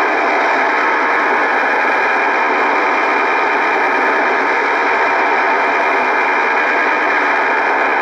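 STANAG military digital-mode data signal received on shortwave and played through a communications receiver's speaker: a steady, dense buzzing warble of many tones packed across the voice band, unbroken throughout.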